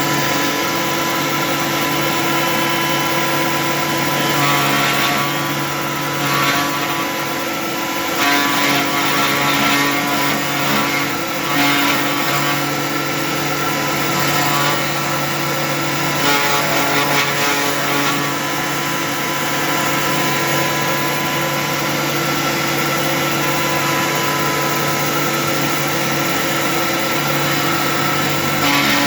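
Cyclone dust-collection vacuum running alongside a CNC 3018 desktop router: a steady motor drone with a few fixed whining tones above it. Stretches of brighter, rougher noise come and go, about five seconds in and again past the middle.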